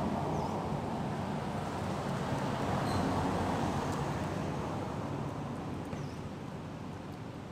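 Low, steady rumble of a motor vehicle passing, slowly fading away.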